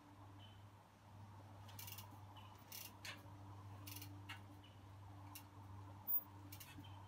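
Faint scattered clicks and short clicking runs from a mountain bike balanced in a trackstand as it is rocked back and forth, with a sharper click about six seconds in, over a steady low hum.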